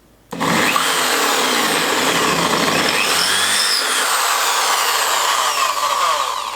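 Electric drill boring into an aluminium-alloy microphone body: a loud, harsh grinding of bit on metal with whining tones that wander up and down. It starts suddenly about a third of a second in and stops just before the end.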